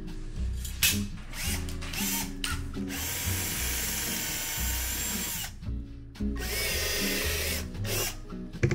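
Milwaukee cordless drill running in two long runs of about two and a half and two seconds, a steady motor whine with no hammering, over background music.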